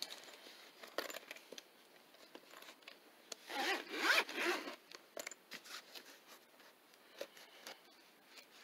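Zipper on a small black hard-shell carrying case being pulled open, loudest from about three to four and a half seconds in, with light ticks and handling noises of the case before and after.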